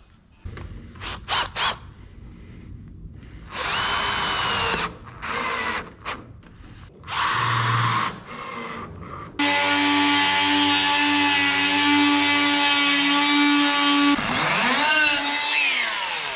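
Cordless drill driving screws through a plywood sheet into a wooden frame: several short whirring bursts, then a longer steady run of about five seconds whose pitch wavers near the end.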